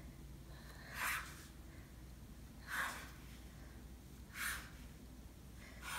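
Chef's knife slicing through soft dough onto a wooden cutting board: three faint, brief cuts, about one every one and a half to two seconds.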